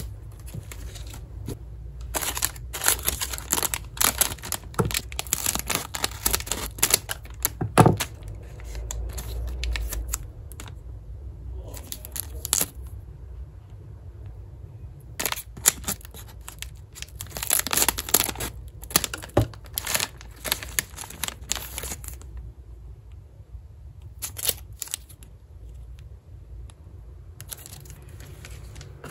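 Plastic snack wrappers crinkling and tearing in irregular bursts as wafer packs are handled and opened by hand, with short quiet gaps between bursts and a steady low hum underneath.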